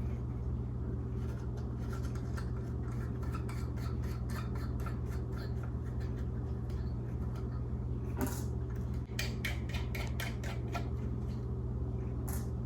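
Small metal clicks, ticks and scrapes as the bolts holding an oil pressure gauge to the back of an instrument cluster are loosened by hand. The clicks come irregularly, with a denser run about eight seconds in and a sharper one near the end, over a steady low hum.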